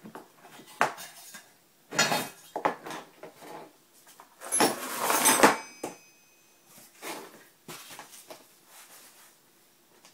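Aluminum bar, copper strap and loose metal hardware clattering and clinking as they are handled and set down on a wooden workbench. The loudest clatter comes about halfway through, followed by a brief metallic ring.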